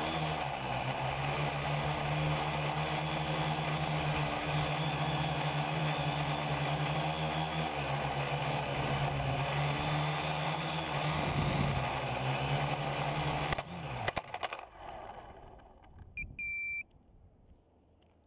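Quadcopter's electric motors and propellers whirring steadily, shifting pitch a couple of times, then spinning down and stopping about fourteen seconds in as it sets down. About two seconds later comes one short electronic beep.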